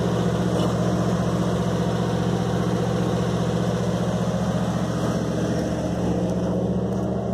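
Pickup truck's engine idling steadily.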